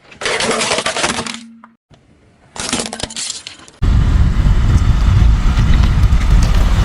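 Two bursts of crackling crunching as brittle things are crushed under a car's tyres. From about four seconds in, a loud, steady, deep rumble takes over.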